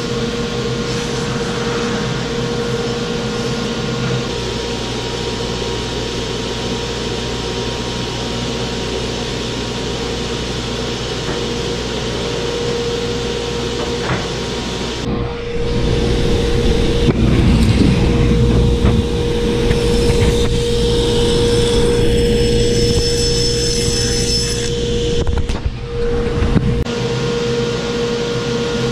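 Table saw running while sheets of plywood are fed through it, a steady machine drone with a constant hum that gets louder from about halfway through until near the end.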